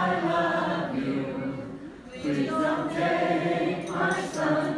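Voices singing a slow song with long held notes, pausing briefly about two seconds in.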